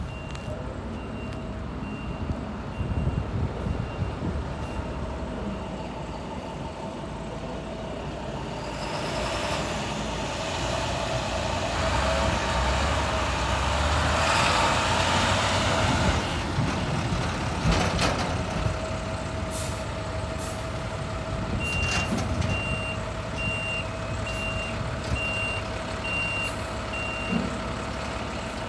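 A medium-duty diesel grapple truck runs and moves across the yard, its engine noise building to a peak midway before easing. Near the end, a backup alarm beeps about once a second for several seconds.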